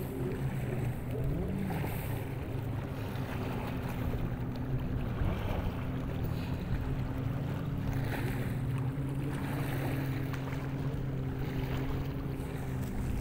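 An engine running steadily, an even low hum with several steady tones, with some wind noise on the microphone.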